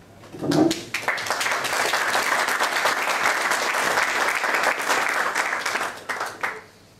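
Audience applauding: the clapping swells in about a second in and dies away near the end. It opens with a brief, loud, low sound just before the clapping starts.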